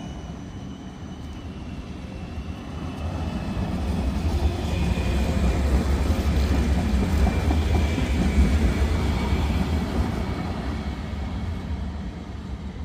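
Electric trams running on street track: rolling wheel-on-rail noise and motor hum that swells as one tram passes close by in the middle and then eases, with a faint high whine over it.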